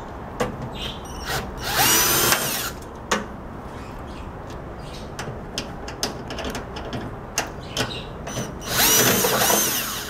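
Cordless drill/driver backing out a screw from a microwave's sheet-metal door-switch assembly, running in two short bursts of about a second each, one near the start and one near the end, with light clicks of handling in between.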